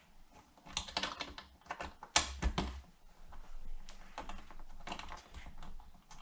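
Saddlebag latch lock cylinder and latch mechanism worked with a key: a run of small hard clicks and clacks, the loudest about two seconds in. The owner suspects these lock cylinders are poor quality.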